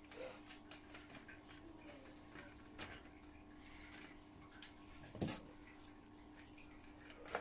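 Faint small clicks and taps of plastic model-kit parts and small bolts being handled on a workbench, a few sharper ticks among them, the loudest about five seconds in, over a faint steady hum.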